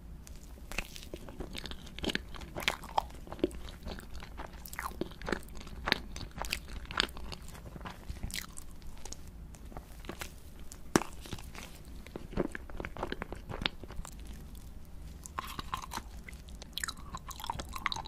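A person biting and chewing a red food item, with many short, irregular clicks and smacks of mouth and food.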